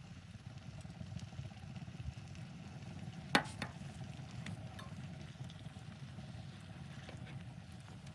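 Wood fire crackling over a steady low rumble, with one sharp loud crack and a smaller one just after it about three and a half seconds in.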